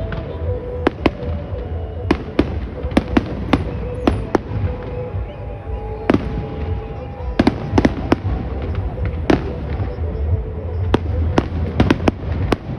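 Aerial fireworks going off: many sharp bangs and cracks at an irregular pace, some in quick clusters, over a steady low rumble.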